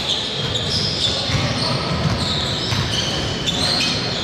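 Basketball shoes squeaking on a hardwood gym floor, several drawn-out squeaks, over a low murmur that echoes in the large hall.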